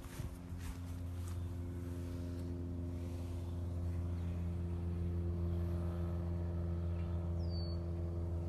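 An engine running steadily with a low, even hum that grows a little louder a few seconds in.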